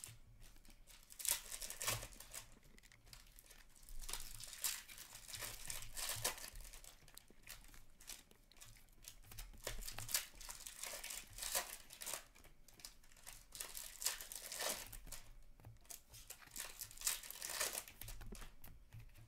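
Upper Deck hockey trading cards being slid and flipped through by hand, with crinkling and tearing of foil pack wrappers, in faint irregular bursts.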